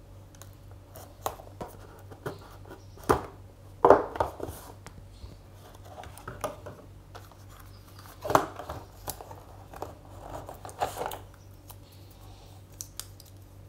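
A knife slitting the packing tape on a small cardboard phone box, then the box being opened and its contents handled: scattered scrapes, clicks and rustles of cardboard and plastic.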